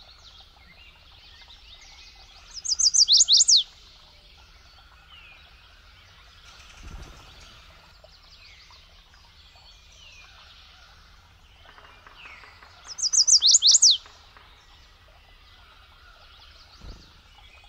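Chestnut-sided warbler singing twice, about ten seconds apart: each song a quick run of high, sweet notes ending in two sharply falling notes. Faint calls of other birds sound between the songs.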